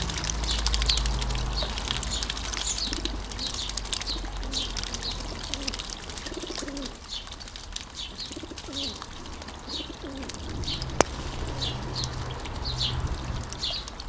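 Bird-bath fountain trickling while a starling splashes as it bathes, with small birds chirping over and over and some lower calls in the middle. One sharp click sounds late on.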